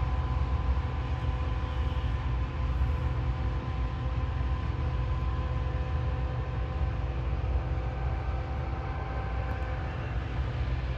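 Combine harvester running steadily at work: a heavy, even low rumble with a constant multi-tone mechanical whine over it.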